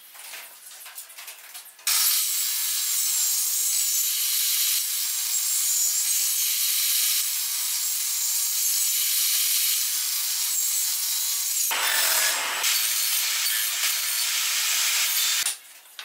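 Table saw running and cutting a thin wooden board: a loud, steady noise that starts abruptly about two seconds in and stops suddenly near the end, briefly fuller and lower a little before it stops. Before it there are faint handling taps.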